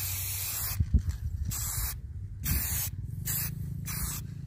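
Aerosol spray-paint can hissing in five short bursts as it sprays orange paint onto a boulder. A steady low rumble sits underneath, and there is a dull knock about a second in.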